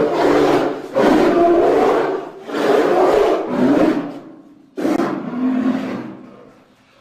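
Designed creature sound effect for the extinct glyptodont Doedicurus: a string of rough, low calls one after another, four in all, the last trailing off about two-thirds of the way through.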